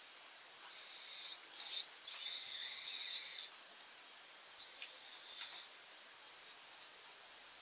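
Young puppy whining in high, thin calls, about four of them, with the longest about two seconds in.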